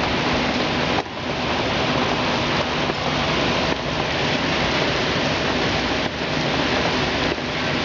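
Hurricane rain and wind, a loud steady rush with slight dips about a second in and again near six seconds.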